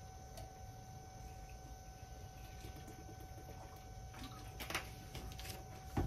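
Quiet room tone with a faint steady electrical hum, and a couple of faint clicks about three-quarters of the way through.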